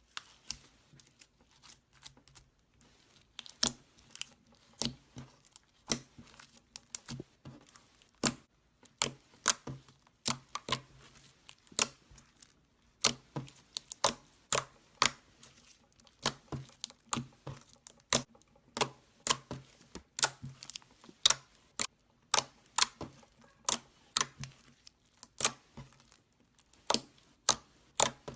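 Glitter slime being squeezed and played with in the hands, trapped air popping in a steady run of sharp clicks, about one or two a second.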